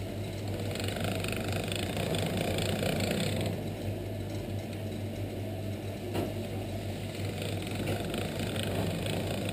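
Electric pasta machine running with a steady motor hum as pasta dough is fed through its rollers. The sound brightens for about three seconds near the start, and there is a single click about six seconds in.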